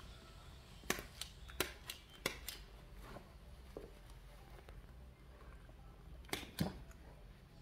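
Small scissors snipping: a quick run of about six sharp snips starting about a second in, then two more near the end.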